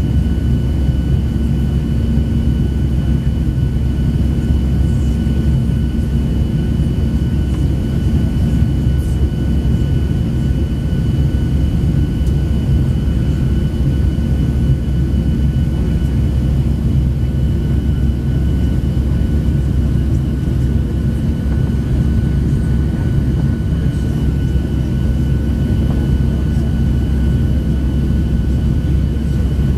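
Cabin noise of a Boeing 737-700 in the climb after takeoff: its CFM56-7B jet engines and the airflow make a steady low rumble with a thin, steady high whine over it.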